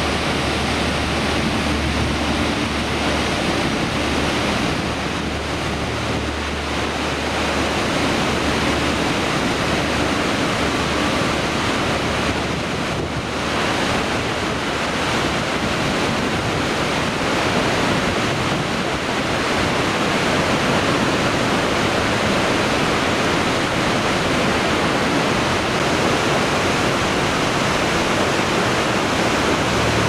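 Langfoss waterfall rushing down its rock face, a loud, steady roar of falling water and spray. A deep low rumble sits under it for the first nine seconds or so.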